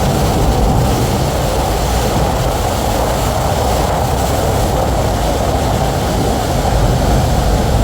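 Loud, steady rush of a flood torrent, fast muddy water pouring through a channel without a break.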